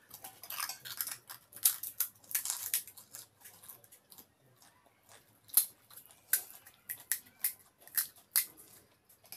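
Crisp fried pani puri shells being broken open by hand and chewed: a run of sharp, irregular crackles and crunches.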